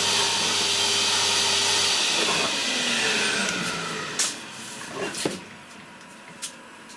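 CNC milling machine running with a loud hiss and hum, switched off about two seconds in and winding down with a falling whine. A few sharp clicks and a knock follow.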